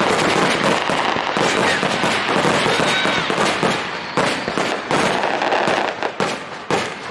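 Aerial fireworks shells bursting in a rapid, overlapping barrage of bangs and crackle, easing off slightly near the end.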